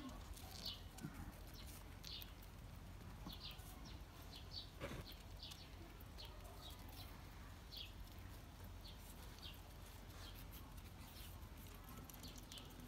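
Faint bird chirps: short, high, slightly falling notes, scattered irregularly over a low steady hum.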